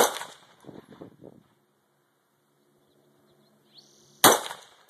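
AR-15 rifle (Stag lower, DPMS upper) firing two single shots about four seconds apart, one right at the start and one near the end, each a sharp crack with a short tail.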